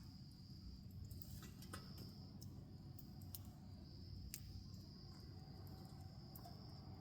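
Faint wood bonfire crackling with scattered sharp pops and ticks, over a low steady rush. Behind it, insects trill steadily on one high note.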